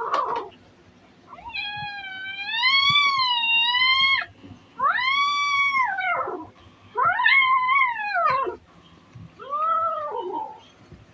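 An angry kitten giving four long, drawn-out yowls, each rising and then falling in pitch, the last one shorter.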